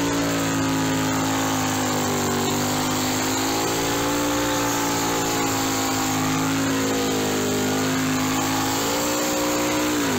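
A car engine revved up and held at high revs, its pitch wavering slightly, then dropping back toward idle right at the end.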